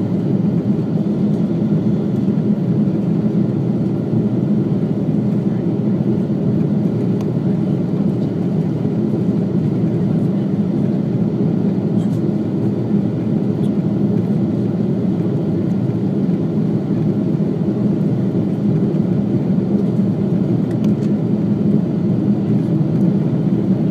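Steady cabin noise of an Airbus A330-200 in flight: a constant low drone of the engines and airflow heard inside the passenger cabin, with no change in pitch or level.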